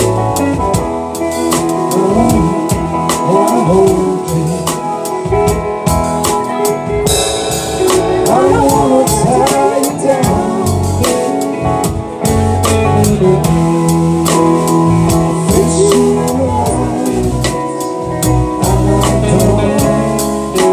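Live band playing an instrumental passage: a drum kit keeping a steady beat under guitar.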